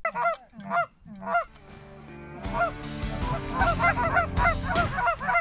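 Goose honks: three loud honks in the first second and a half, then a fast run of many honks over background music with a steady bass that comes in about two and a half seconds in.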